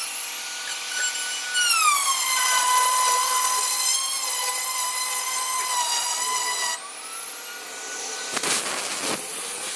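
Electric power tool's motor whining as it cuts wood: the pitch drops about a second and a half in as the tool bogs under load and holds lower, then rises again about seven seconds in as the load comes off. Two short rasping bursts follow near the end.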